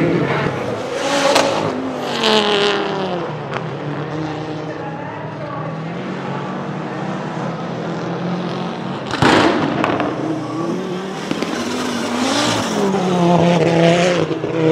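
Audi Quattro A2 Group B rally car's turbocharged 2.1-litre five-cylinder engine revving hard, its pitch climbing and dropping repeatedly through gear changes as the car is driven flat out. A sharp bang about nine seconds in is the loudest moment.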